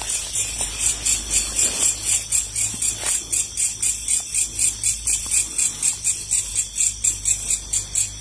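Insect chirping in a steady rhythm, high-pitched pulses about three times a second, typical of a cricket at night.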